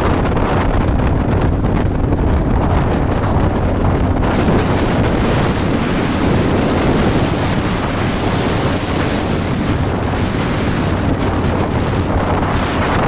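Heavy wind buffeting the microphone of a motorcycle at highway speed, with the engine running steadily underneath as a low hum.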